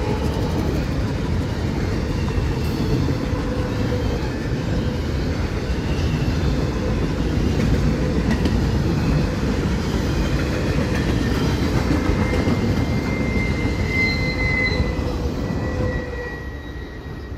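Intermodal freight cars rolling past at track level, a steady rumble and rattle of wheels on rail. A thin, high, steady wheel squeal comes in over the second half. The noise drops off about a second before the end.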